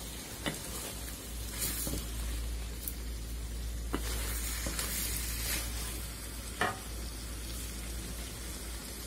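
Beef pieces with onions and spices sizzling in hot oil in a metal karahi while a spatula stirs them, scraping and knocking against the pan a few times. This is the meat frying in its spice base, the koshano stage of a beef curry.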